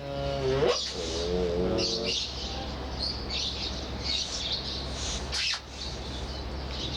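Cape clawless otters squeaking: two wavering, whining calls in the first two seconds, then fainter high chirps, over a steady low hum.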